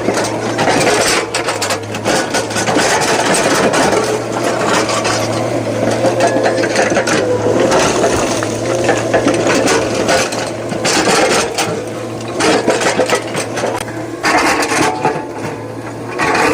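Heavy machinery working: a steady low engine hum under continuous grinding, scraping and clattering, with many sharp knocks throughout.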